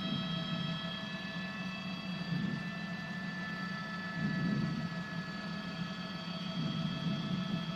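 Helicopter cabin noise picked up through the commentator's open microphone: a steady low drone that swells every second or two, with several steady high whining tones from the turbine and gearbox.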